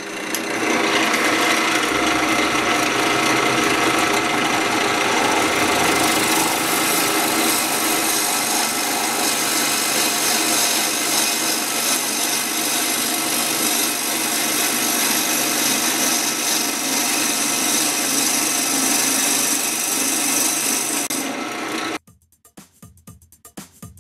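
A gouge cutting into a dry mountain ash (rowan) blank spinning on a wood lathe: a loud, steady rasping hiss of the tool roughing the wood. It stops abruptly about two seconds before the end, leaving faint music with a beat.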